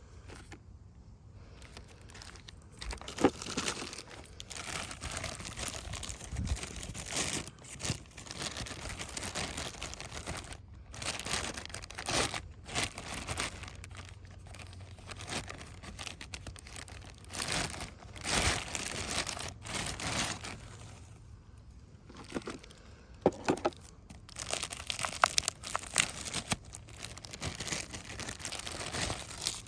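Packaging crinkling and tearing in uneven spells as parts are unwrapped by hand, with a few sharp clicks and knocks.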